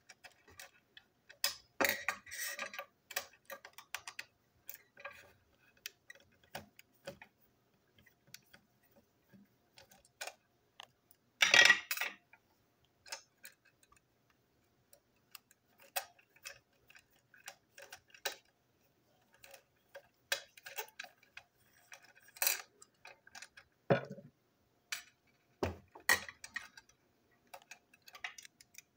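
Irregular small clicks, taps and clatters of plastic toy train wagon parts, tiny screws and a small screwdriver being handled on a tabletop, with a louder rattle about twelve seconds in and a couple of duller knocks later on.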